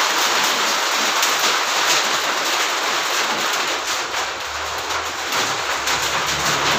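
Heavy rain pouring down, heard from under a corrugated metal roof: a steady, dense hiss.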